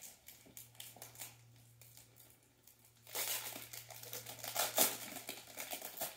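Upper Deck Allure hockey card pack wrapper being handled and torn open, crinkling. It is faint at first and turns to louder, dense crinkling from about three seconds in.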